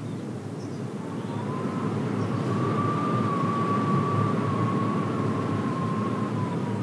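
Wind rumbling around a wooden tower, with a thin whistle that slowly rises and falls in pitch, swelling louder after about a second.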